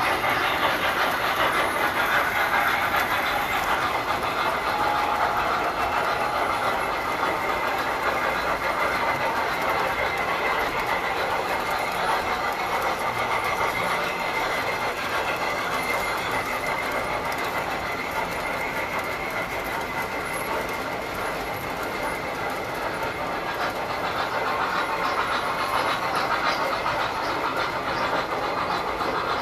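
Tinplate model trains running on metal track: a steady, dense clatter of wheels and rails, with a faint steady high tone.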